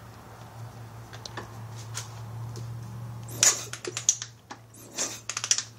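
Sharp metallic clicks and taps in quick clusters from about halfway through, over a low steady hum: a removed spark plug on its lead being handled against the motorcycle's frame while the engine is turned over to test for spark.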